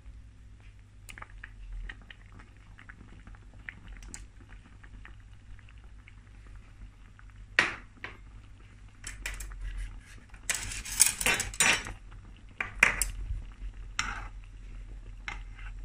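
Pot of noodle broth simmering, with scattered clinks and knocks of utensils against the pot, busiest and loudest about ten to thirteen seconds in.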